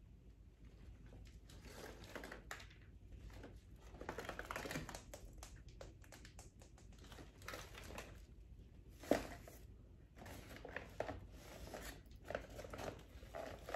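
Kraft paper wrapping rustling and crinkling in irregular bursts as it is handled and pulled down off a potted plant, with one sharper crackle about nine seconds in.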